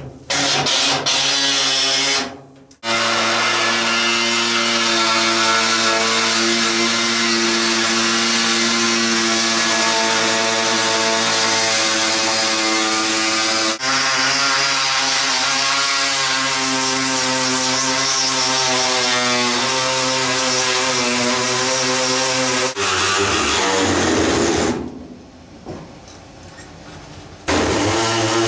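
Pneumatic reciprocating air saw cutting through the metal roof posts of a car body, a loud steady buzz with a strong pitch. It stops briefly about three seconds in and again about halfway through, then falls much quieter for a few seconds near the end before cutting again.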